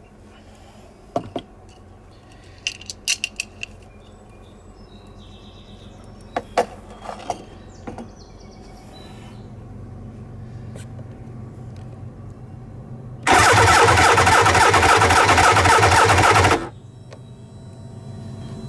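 Electric starter cranking the 1998 Tigershark TSR 1000's three-cylinder two-stroke engine without firing, loud and steady for about three and a half seconds and then stopping abruptly, during a compression test of the center cylinder, which reads about 140 PSI. A few light clicks and knocks come before it.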